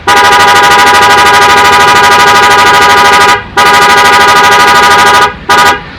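Aftermarket 'prikitiw' car horn sounding a loud, steady multi-tone chord with a fast flutter. A long blast of about three and a half seconds, a brief break, then a shorter blast of under two seconds, with another starting at the very end.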